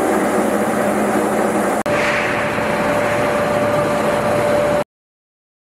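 Industrial plant machinery running steadily. About two seconds in it changes abruptly to the steady running of belt-driven centrifugal fans, with one thin, even whine over the hum. The sound cuts off suddenly near the end.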